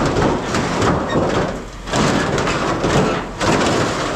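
Pieces of scrap tin (light sheet steel) clattering and scraping against each other and against metal as they are handled and dumped, in three loud stretches with two brief pauses.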